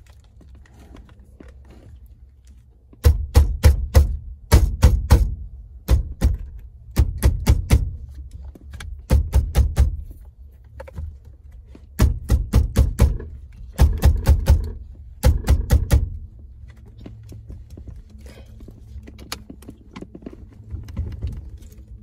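2005–2012 Acura RL steering wheel, stuck on its steering shaft with the nut off, being shaken hard back and forth: quick bursts of several sharp knocks each, repeated from about three seconds in until about sixteen seconds in, then it goes quiet.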